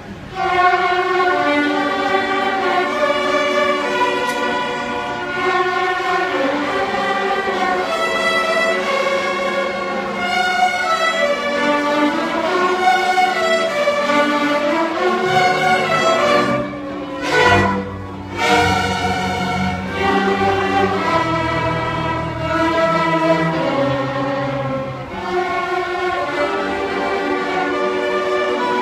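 A large children's orchestra, some players only months into learning, playing a melody with violins carrying the tune over lower bowed strings. There is a short break in the music about two-thirds of the way through before it carries on.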